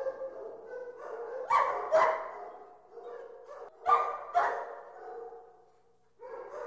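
Several dogs in a dog pound whining and calling continuously, with loud barks breaking out twice about a second and a half in and twice again around four seconds in; the calls ease off briefly near the end.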